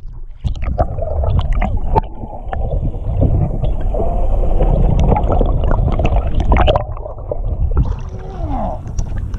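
Water gurgling and rushing around a camera held underwater, heard muffled as a heavy low rumble with scattered clicks and knocks. About eight seconds in the sound opens up brighter as the camera nears the surface, where a hooked striped bass is splashing at the hull.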